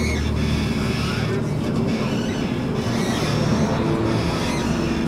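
Tram running, heard from inside the car: a steady low hum with the noise of the wheels on the rails.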